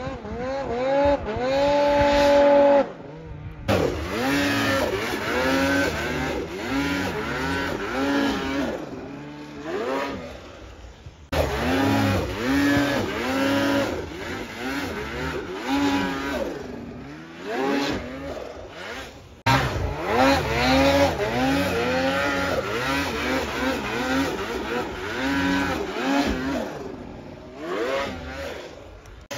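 Snowmobile engines revving again and again, the pitch climbing and dropping with each throttle blip. The sound breaks off abruptly and starts anew three times.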